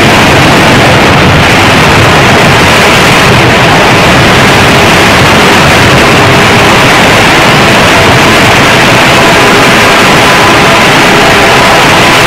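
Loud, steady rushing noise of water and wind past a boat running alongside a large ship, with a few faint sustained tones through it.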